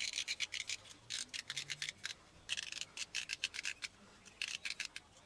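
Runs of quick, sharp scraping clicks, in about four bursts, as a Spitfire bearing is worked out of a skateboard wheel.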